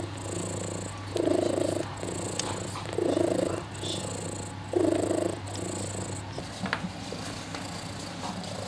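Domestic cat purring while nursing, a steady rumble that swells louder about every two seconds, three times.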